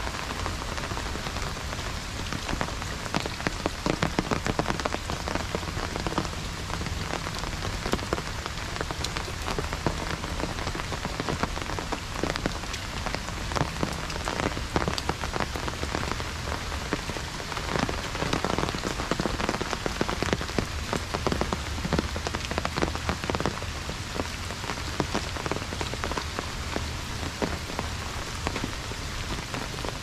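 Heavy rain falling steadily, with many close drops tapping sharply on an umbrella overhead.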